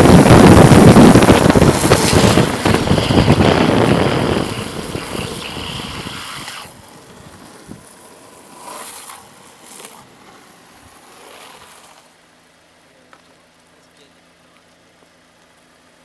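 Wind rushing over a vehicle-mounted microphone and tyres hissing on a wet road at speed, dying away over about six seconds as the vehicle slows; after that it is quiet apart from a faint steady low hum.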